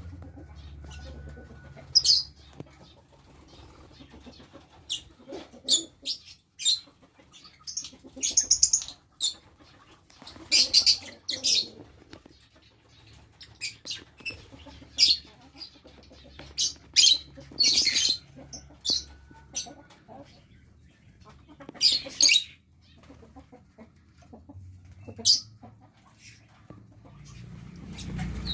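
Lovebirds in an aviary giving short, shrill chirps at irregular intervals, with wings flapping.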